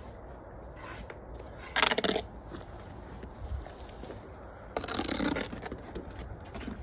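Block-laying work: two short scrapes about three seconds apart, the first one louder, over a low steady background.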